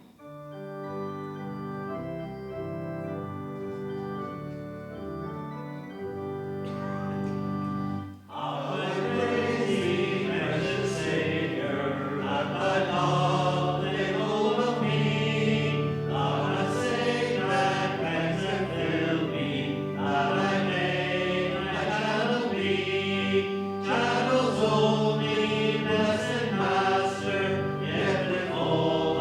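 Hymn: an organ plays held chords as an introduction, then about eight seconds in a congregation starts singing along with it.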